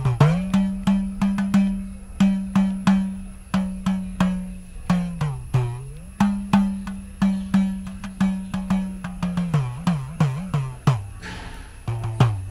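Percussion music: quick, sharp drum strokes over a low drum tone that slides down and back up in pitch, easing off near the end.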